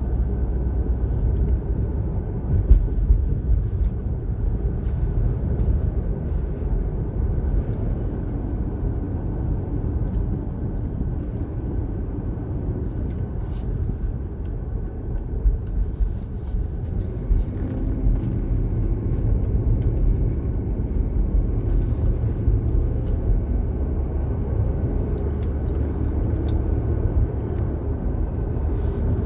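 Steady low rumble of a car on the move, road and engine noise heard from inside the cabin, with a few faint clicks.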